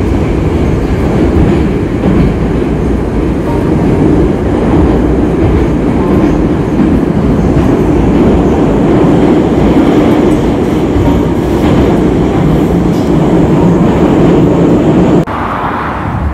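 Metro train running, heard loud and steady from inside the carriage. The noise cuts off suddenly about a second before the end, giving way to a quieter sound.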